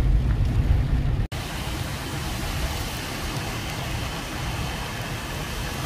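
Car driving in the rain: a low rumble, then, after an abrupt cut about a second in, an even hiss of rain and road noise.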